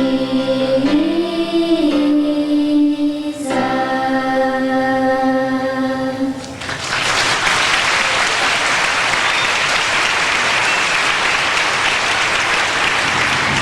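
A choir holds the final sung chord of a song, the voices moving once to a higher note, and stops about six and a half seconds in. Audience applause then takes over and goes on steadily.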